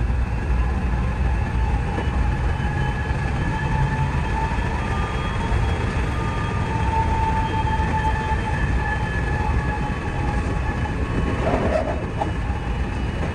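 JR West 207 series electric train running at speed, heard from the driver's cab: a steady rumble of wheels on rail with a few faint, steady whining tones above it.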